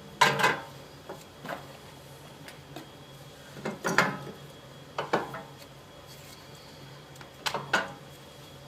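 Irregular short clanks and knocks of brake parts and hand tools being handled and set down during a brake pad change, with several louder strikes near the start, in the middle and near the end.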